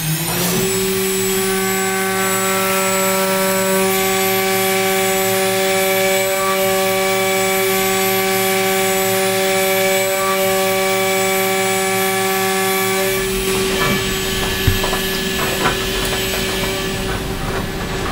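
DNM 5700L CNC mill's end mill roughing a metal fixture block: a steady, pitched cutting whine under the chip noise. About 13 seconds in, the whine partly drops away into a noisier sound with two sharp knocks.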